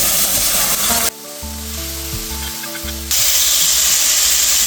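Beef fillet searing in hot olive oil in a frying pan, sizzling loudly. About a second in, the sizzle cuts off for two seconds and a few held musical notes play, then the sizzling resumes just as suddenly.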